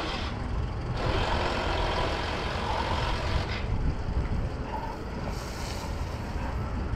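Garden hose running water into a bucket of fish chum, a hiss that is strongest in the first half, while hands knead the wet mix. A steady low rumble runs underneath.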